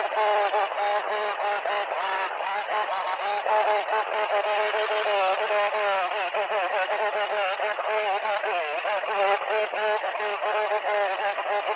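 Chainsaw engine running and revving up and down in quick succession, heard sped up by the time-lapse, its pitch wavering constantly.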